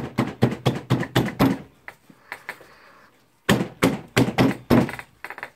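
Quick knocks and taps of tool parts being worked together while their bolt holes are lined up, in two runs of about four to five knocks a second with a quieter gap between.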